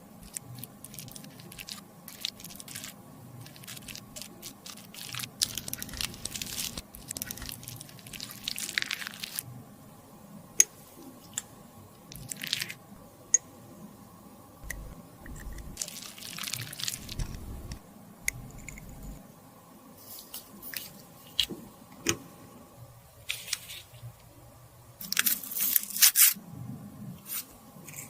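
Close-miked handling during lipstick repair: a run of sharp clicks, taps and short scraping noises from lipstick tubes and tools, with a louder, longer scrape near the end.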